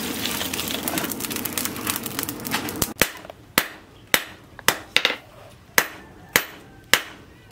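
Lumps of charcoal tipped from a basket onto a forge fire, a dense rattling clatter. About three seconds in, a hand hammer starts striking a red-hot steel knife blank on a steel anvil block, about two blows a second, each a sharp strike with a short ring.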